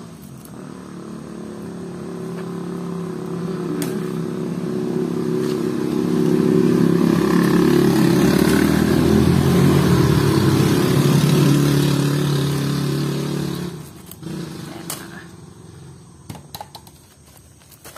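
A motor vehicle engine, growing louder over the first six seconds, running steadily, then cutting off abruptly about fourteen seconds in. After that, a few light clicks.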